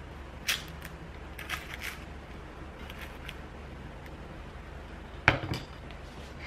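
Light clicks and knocks of food and tableware being set into a ceramic pot and onto a wooden tray, with one sharper knock and a brief ring a little after five seconds in.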